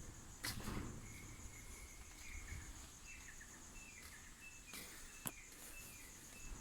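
A steady, high, pulsing insect trill, with a run of short bird chirps in the middle and a few light knocks.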